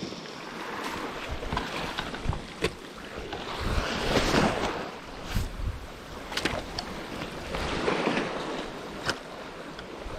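Small waves washing over seaweed-covered rocks at the water's edge, swelling twice, with wind on the microphone and a few short sharp clicks.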